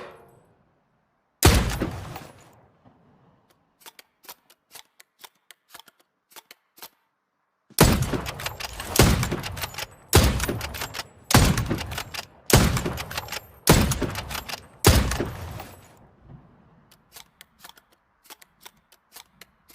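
Hunting rifle shots: one shot with a long fading tail, a run of short sharp clicks, then seven shots in a row about a second apart, each with its own fading tail, followed by more scattered clicks.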